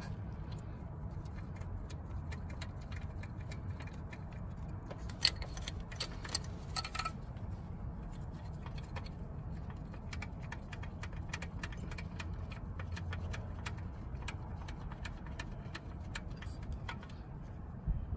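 Scattered light metallic clicks and small rattles from hand work refitting a vehicle speed sensor on the transmission, a few sharper clicks about five to seven seconds in, over a steady low rumble.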